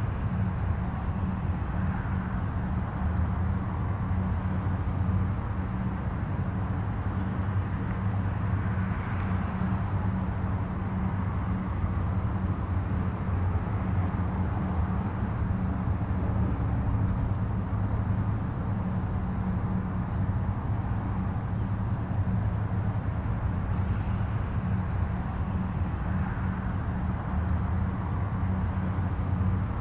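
Distant highway traffic: a steady low rumble of tyres and engines, with a few gentle swells as vehicles pass. A faint, high, steady pulsing sits above it.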